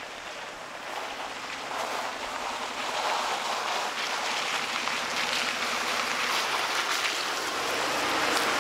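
Jeep Liberty SUV towing a small camper trailer driving slowly up a gravel road with slush and ice, the tyres crunching and the engine running. It grows steadily louder as it approaches and pulls up close.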